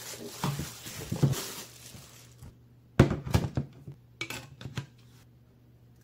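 Clinks and knocks of a stainless steel kettle being handled, a few at the start and the loudest cluster about three seconds in, with more just after.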